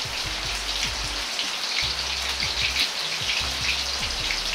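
Eggplant pieces deep-frying in hot oil in a wok: a steady, dense sizzle with fine crackling.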